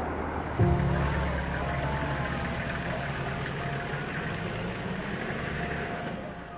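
Toyota Land Cruiser SUV's engine starting about half a second in with a sudden catch, then running steadily with a low hum that fades near the end as the vehicle pulls away.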